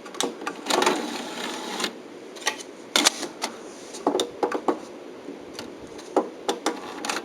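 Irregular sharp clicks and clatter from handling the stereo, with a longer rustling, scraping stretch about a second in.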